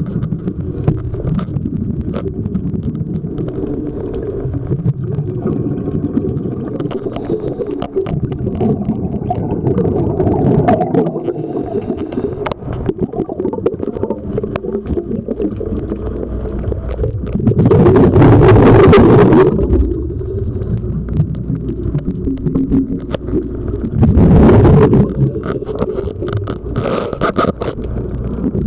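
A diver's breathing regulator underwater: exhaled breath bubbles out in two loud gushes, one about two thirds of the way in and a shorter one about six seconds later, over a steady low underwater rumble with scattered clicks from the camera housing being handled.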